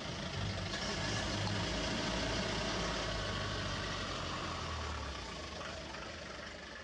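Safari jeep engine running, with road noise, heard from inside the open vehicle. The low engine hum drops away about five seconds in and the sound then fades.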